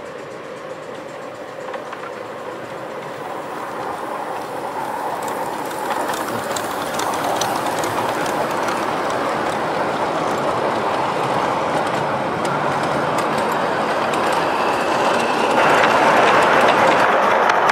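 A 5-inch gauge live steam model locomotive and its train of small freight wagons rolling past on a miniature railway track: a steady running noise of wheels on rail, growing louder as the train nears, with sharp clicks over the rail joints as the wagons pass close by. The noise grows louder again about three-quarters of the way through, as a locomotive comes head-on.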